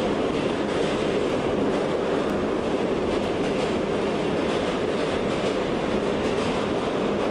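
New York City elevated subway train running along its track, heard from inside the moving car: a steady rumble of wheels on rails.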